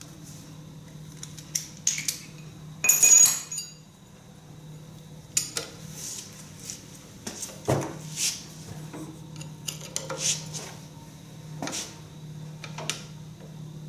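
Metal hand tools and parts clinking and clattering on and around a tractor engine under teardown, in scattered sharp clinks with a short burst of rattling about three seconds in.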